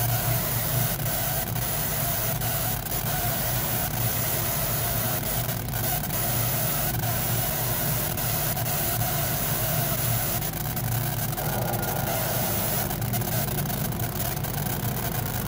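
Laser engraver running as it burns an image into a wooden board: a steady mechanical hum with faint, scattered ticks.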